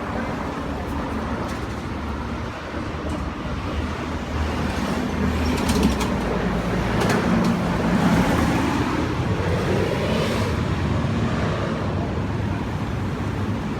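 Road traffic noise, with a motor vehicle's engine running close by. It grows louder in the middle and eases off again.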